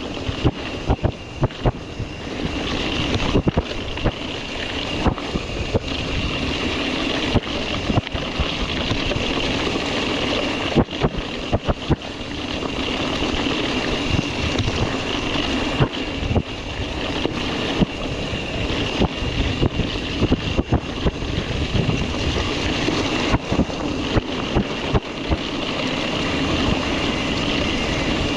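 Mountain bike being ridden over a rough, rutted dirt trail: tyres crunching on the ground and the bike rattling with many sharp knocks over the bumps, with a steady high buzz and wind rushing on the microphone.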